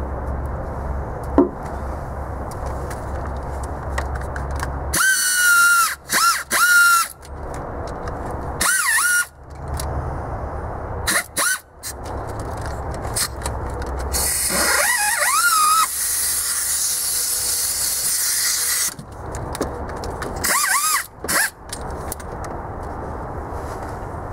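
Mini air ratchet run in about five short bursts, driving in the starter's mounting bolts. Each burst is a whine with a wavering pitch over a high hiss, and the longest lasts about four seconds past the middle.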